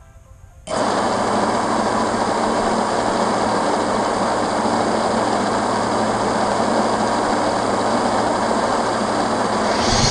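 Vortex 150 mini FPV quadcopter's motors running at a steady speed, a constant whirring hum that starts abruptly about a second in. Near the end the pitch begins to sweep up and down with throttle.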